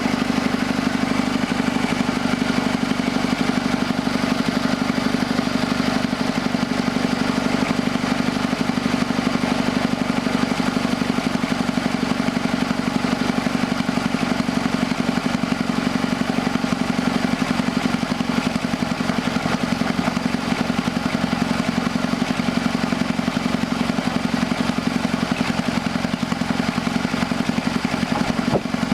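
Sawmill's engine running at a steady speed, unchanging throughout.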